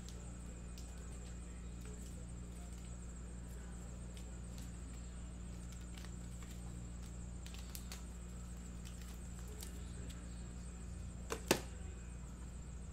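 Steady low hum of room equipment with a few faint ticks, then a sharp knock near the end, just after a smaller one.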